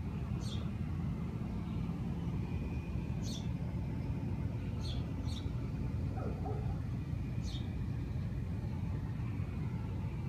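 Outdoor background: a steady low rumble like distant traffic, with a few faint, short high chirps.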